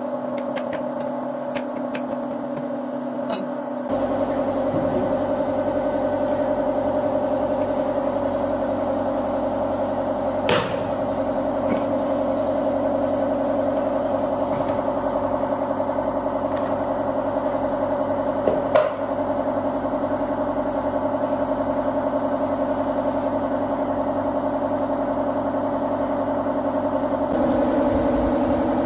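A steady mechanical hum with a few sharp knocks, two of them about eight seconds apart.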